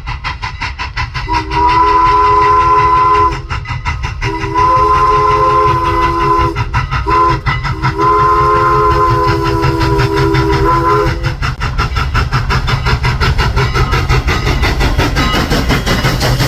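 Strasburg Rail Road steam locomotive No. 89's three-chime whistle, an ex-Long Island Rail Road Pennsy-style three-chime, blowing the grade-crossing signal: two long blasts, a short one and a final long one. The train's steady rumble and clatter run underneath and grow noisier near the end.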